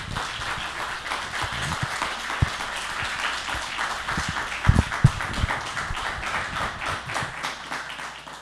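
Audience applauding: many hands clapping in a dense steady patter, thinning out near the end. Two low thumps stand out about halfway through.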